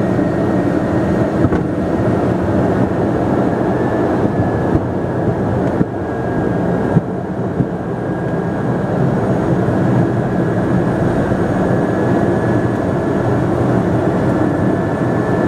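Pilatus PC-12's single Pratt & Whitney PT6A turboprop engine and propeller running steadily, heard from inside the cockpit during the landing rollout, with a thin high whine over the engine noise and a few light knocks around the middle.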